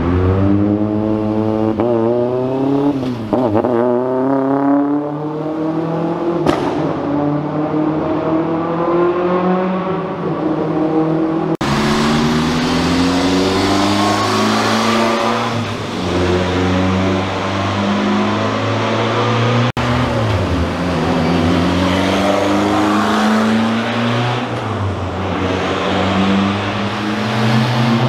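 Rally car engines accelerating past one after another, each rising in pitch and dropping back with every gear change, with sudden cuts from one car to the next. A single sharp crack comes about six and a half seconds in.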